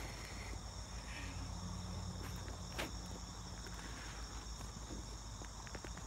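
Steady high-pitched insect chorus, with faint low rumbling from the phone being handled and one sharp click about three seconds in.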